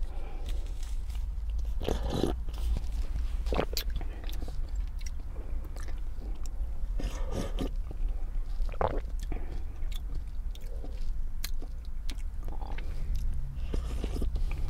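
Mouth sounds of a person sipping a hot coffee drink from a paper cup: several slurping sips, swallows and lip clicks, over a steady low hum.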